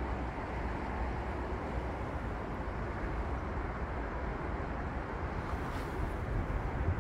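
Steady outdoor rushing noise, heaviest in the low end, with no distinct events.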